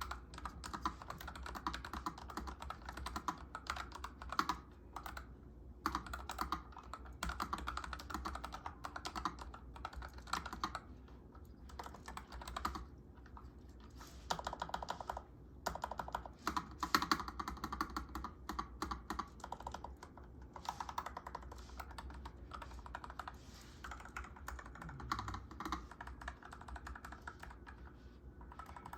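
Typing on a NuPhy Air 75 low-profile mechanical keyboard with brown switches: a fast, uneven stream of key clicks with short pauses between bursts.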